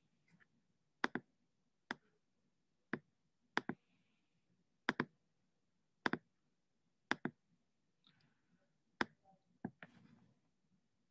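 A series of faint, sharp clicks, about nine in all, at an uneven pace of roughly one a second.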